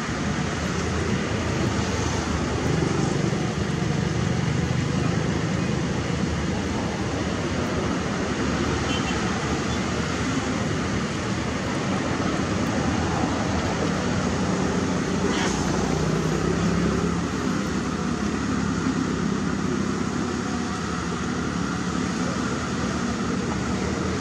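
Caterpillar 320D L long-reach excavator's six-cylinder diesel engine running steadily under working load as the machine digs and swings, its low note shifting a little from time to time.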